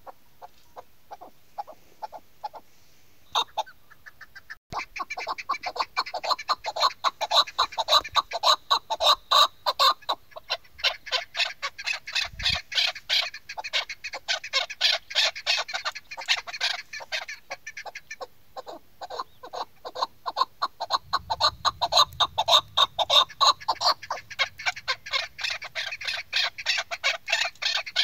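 Caged female chukar partridge (chakor) calling in a long run of rapid, repeated clucking notes, several a second. The calls start about five seconds in and pause briefly twice.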